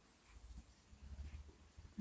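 Near silence: a sleeping cat's faint breathing close to the microphone, two soft breaths about a third of a second and a second in.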